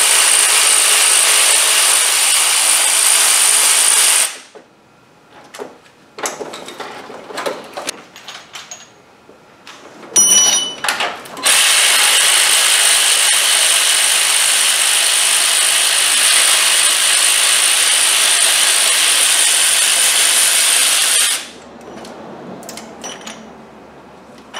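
Power ratchet with a T60 Torx socket spinning out already-loosened cylinder head bolts on a Range Rover 4.2 supercharged V8. A steady run stops about four seconds in, then come a few light clicks and a short burst about ten seconds in, then another steady run of about ten seconds that stops near the end.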